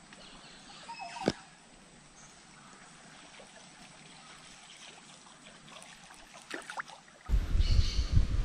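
Quiet river water lapping and trickling around a small boat, with one sharp knock about a second in. Near the end a loud, uneven low rumble takes over.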